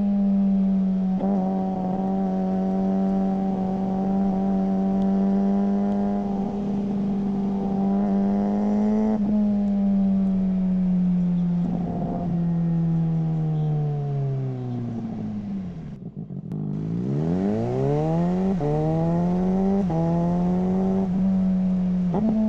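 Suzuki GSR600's inline-four engine through a GPR Ghost aftermarket exhaust, held at steady revs for several seconds, then the revs fall away as the throttle closes. After a brief drop-out the engine pulls hard again, the pitch climbing and dropping sharply three or four times at quick gear upshifts.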